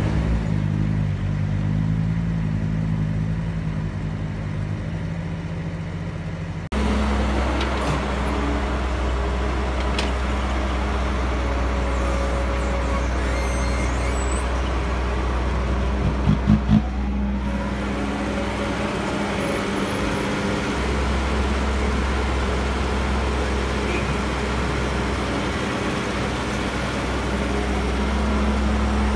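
Diesel engine of a CAT E315B hydraulic excavator running steadily under working load while digging and loading soil. The sound shifts abruptly about seven seconds in, and there is a quick run of four knocks near the middle.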